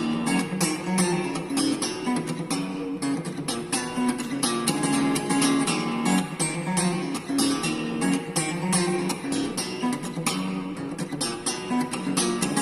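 Background music led by a plucked, strummed guitar, with many short, sharp clicks throughout.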